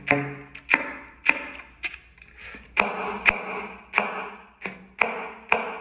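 Saxophone slap tongue: a series of about ten sharp percussive pops, the tongue released from a suction seal on the reed, each followed by a short pitched note. The notes change from pop to pop, with a brief pause about two seconds in.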